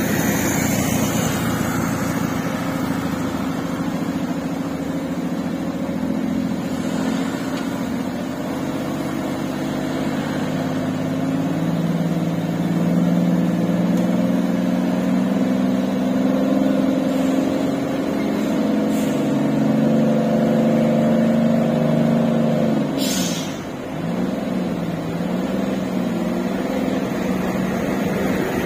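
Mitsubishi Fuso tanker truck's diesel engine running as the truck backs down a steep hill it could not climb, its note slowly rising and falling. About three-quarters of the way through the engine note dips and there is a short hiss.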